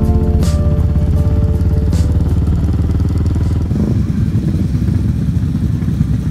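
Background music for the first few seconds, then, just under four seconds in, a group of motorcycle engines idling together in a low, uneven rumble.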